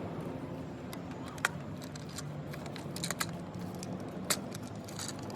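VW/Audi EA888 turbocharged four-cylinder engine idling, with sharp clicks now and then; a rough idle that the title puts down to a failed PCV valve.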